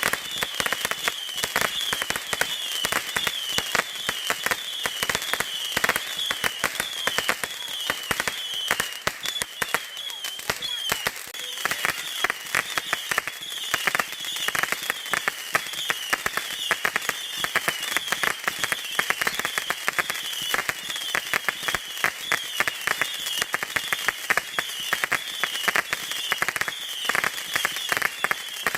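Fireworks crackling densely and without a break, like a crackle fountain or firecracker strings, with a high chirping that repeats about twice a second.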